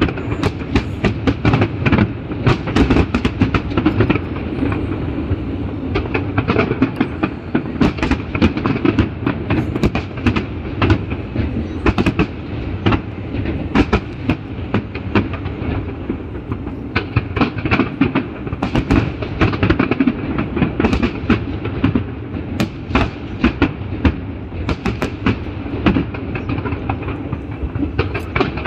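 Fireworks going off in a dense, continuous barrage: many sharp bangs and crackles a second over a steady low rumble.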